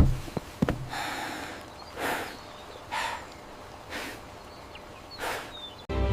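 A series of soft, breathy snorts, five short puffs about a second apart, after a sharp knock and two clicks at the start.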